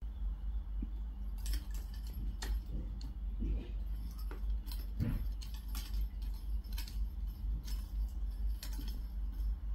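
Irregular light clicks and rattles as a kitten bats at the wooden beads of a toy abacus and a small toy ball, over a steady low hum.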